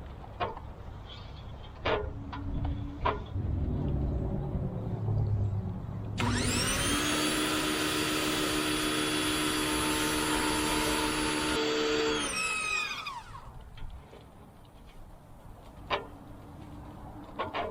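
Pressure washer motor and pump spinning up about six seconds in, running steadily for about six seconds, then winding down with a falling pitch, as when the spray trigger is pulled and released. Scattered clicks and knocks before and after.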